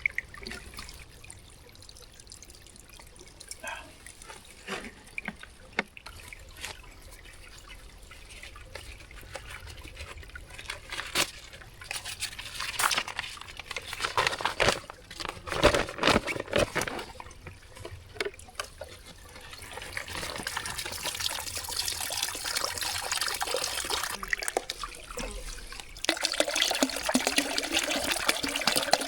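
Spring water being collected into a camp bucket from a low-flowing spring: a faint trickle with a few knocks of handling, then water running into the bucket, louder from about two-thirds in and louder again near the end.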